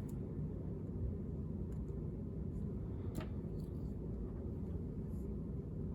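Steady low room rumble with a few faint, short clicks, the clearest about three seconds in.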